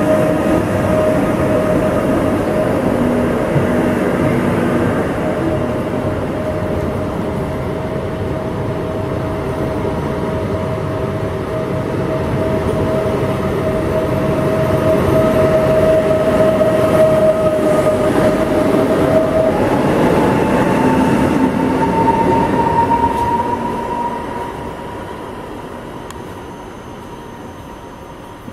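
Electric train running through the station with a steady electric whine over the rolling noise. About two-thirds of the way through, the whine jumps to a higher pitch and climbs slightly. The noise then fades as the train draws away.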